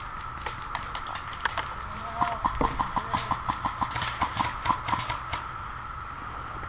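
Airsoft gunfire: a string of sharp cracks and BB hits, with a rapid run of about six shots a second in the middle, stopping a little over five seconds in.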